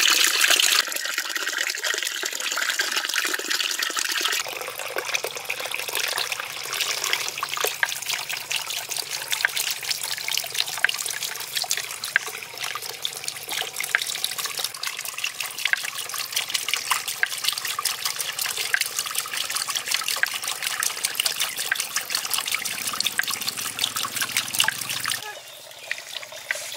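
Water pouring and splashing into a shallow cement pool, then a steady trickle and dribble of water with fine droplet ticks. The sound changes suddenly about four seconds in and again near the end.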